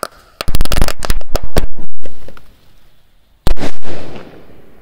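Small firecrackers from a torn-up firecracker belt going off in a rapid string for about a second and a half, then, after a short gap, a single much louder bang about three and a half seconds in. Many of the little firecrackers burn out without exploding because their fuses were pulled.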